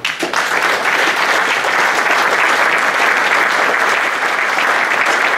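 Audience of many people applauding, starting abruptly and holding steady.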